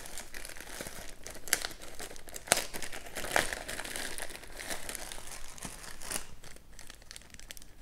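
Small clear plastic bags of kit parts crinkling and crackling as they are picked up and handled, in quick sharp crackles. It dies down near the end.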